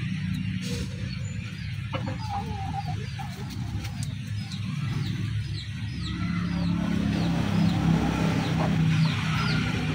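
Backyard fowl: chickens clucking, and a run of short, high, falling chirps repeated every half second or so, over a low steady hum.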